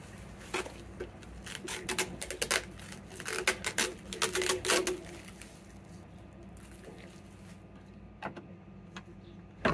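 Bubble wrap and plastic packaging crinkling and rustling as an espresso machine is pulled out of it, busiest in the first half. A few separate sharp clicks follow near the end.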